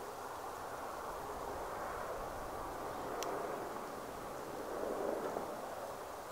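Steady rushing outdoor noise that swells twice, with a single sharp click about three seconds in.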